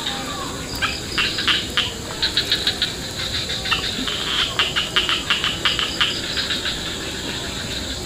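Insects chirping in the surrounding vegetation: clusters of quick, sharp high-pitched pulses, some several a second, over a steady high hum.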